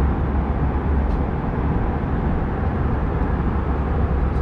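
Steady cabin noise of an Airbus A320-family jet in flight: an even rush of air and engine sound, heaviest in the low end.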